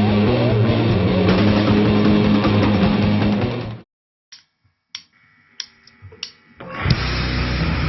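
Rock band recording with guitar playing loud, then stopping dead about four seconds in. A few seconds of near-quiet with a handful of sharp clicks follow before the full band crashes back in near the end.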